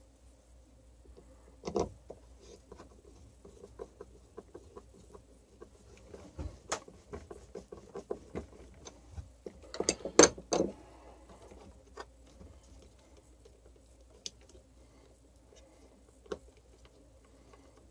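Small clicks, taps and scrapes of a screwdriver and fingers working on the open plastic housing of a hammer drill, with a sharp click about two seconds in and a short run of louder knocks about ten seconds in.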